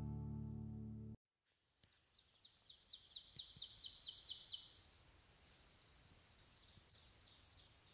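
Guitar music rings for about a second, then stops. After a short silence a songbird sings a rapid trill of repeated high notes that grows louder and ends a few seconds in, followed by a fainter trill.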